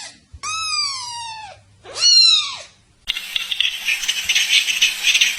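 An animal calling twice, each call a drawn-out cry that rises and then falls in pitch, about a second long; a little past halfway it cuts to a dense, fast rattling chatter.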